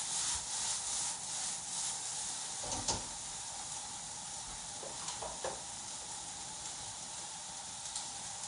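Sliced peppers and onions sizzling in a hot oiled sauté pan, being sautéed down to caramelize. The sizzle is loudest in the first couple of seconds while the pan is tossed, with a single knock about three seconds in, then settles to a steady, quieter sizzle.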